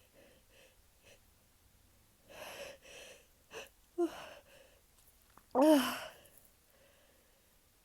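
A young woman's induced sneeze: a few breathy inhales and short catching gasps build up, then one loud sneeze with the voice rising and falling, about five and a half seconds in.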